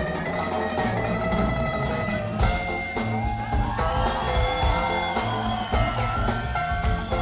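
Background music: an instrumental track with drums and sustained melodic notes, at a steady level.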